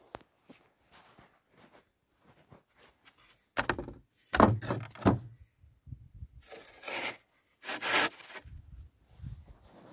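Footsteps in felt boots on wooden planks and snow, with the knock and clatter of a wooden picket gate being pushed open a few seconds in, the loudest sound. Then crunching steps in snow.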